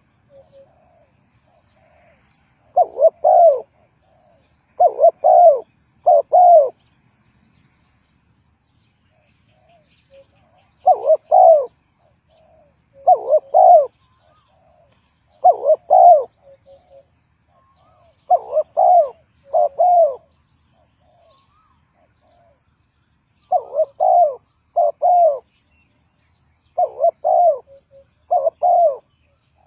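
Spotted dove cooing in repeated phrases of two or three coos, a phrase every two to three seconds, with soft quieter notes between phrases.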